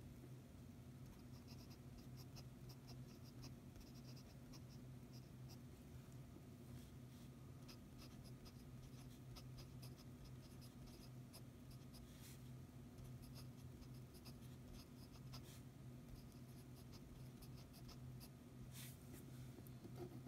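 Fountain pen nib scratching faintly on paper in many short strokes of handwriting, over a low steady hum.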